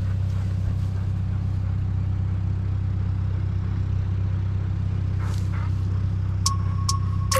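Old tractor engine running steadily with a deep, even drone. Music with regular ticks and held tones comes in near the end.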